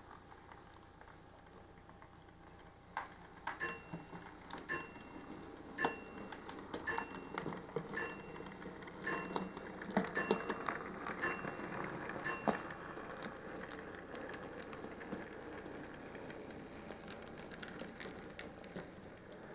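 Model steam locomotive running past on model railway track: rolling mechanical running noise, with a regular series of sharp, ringing clicks a little under two a second from about three seconds in until about twelve seconds, then steadier running noise.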